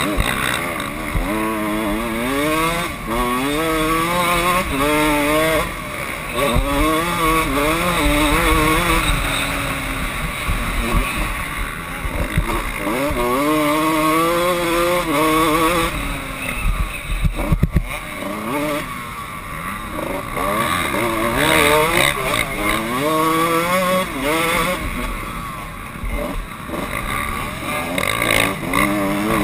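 Kawasaki KX125 two-stroke single-cylinder engine being ridden hard, its pitch climbing through the revs and dropping back again and again as the rider works the throttle and gears, with wind rushing over the microphone. A few sharp knocks come just past halfway.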